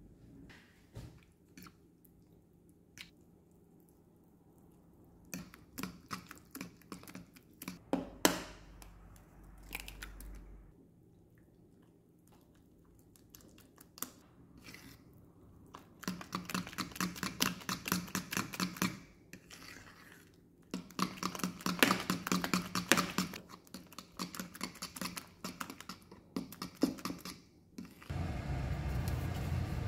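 A plastic spoon stirring and beating thick oat pancake batter in a bowl: scattered scrapes and taps at first, then bursts of fast rhythmic beating strokes in the second half. Near the end a steady hiss starts suddenly.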